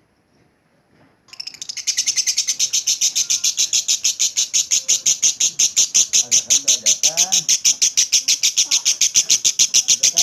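Lovebird's long ngekek chatter: a fast, even run of sharp, high chirps that starts about a second in and keeps going without a break.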